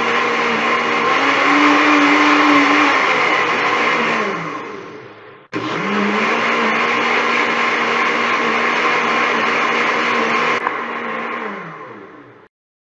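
Electric kitchen blender motor running while blending, its pitch briefly stepping up about two seconds in before it slows down and stops. It is switched on again abruptly about five and a half seconds in, runs steadily, then winds down to a stop near the end.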